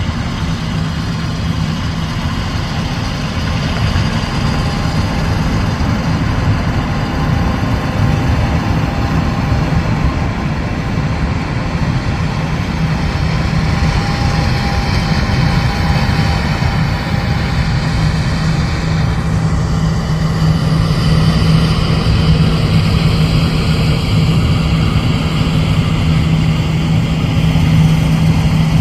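Heavy farm diesel machinery running steadily at harvest: a continuous low engine rumble with a steady low hum. It grows a little louder about two-thirds of the way in.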